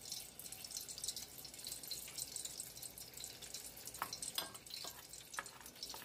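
Steady crackling sizzle of chicken frying in hot oil, with a few sharper clicks and taps about two-thirds of the way in.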